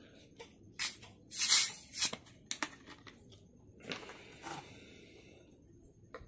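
A plastic Coca-Cola bottle and a glass mug being handled on a table: a series of crackles and knocks. The loudest is a short noisy burst about one and a half seconds in, and there is a sharp click near the end.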